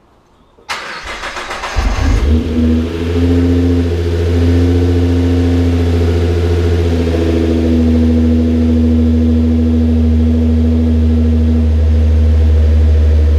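Nissan GT-R R35's twin-turbo V6 being started for the first time after an oil change: the starter cranks for about a second, the engine catches with a brief rev flare about two seconds in, then settles into a steady fast idle.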